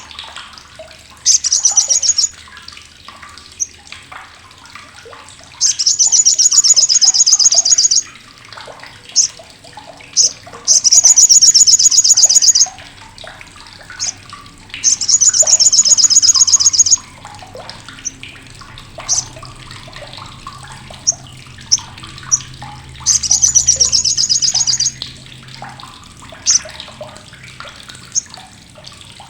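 Olive-backed sunbird (sogok ontong, sriganti) giving its harsh, sharp chattering call: five loud rapid bursts of one to two seconds each, with short single high chips between them.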